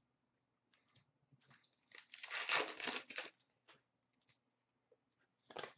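Trading card pack wrapper torn open: a crinkly rip of about a second, starting about two seconds in, followed by a few faint rustles and clicks of cards being handled.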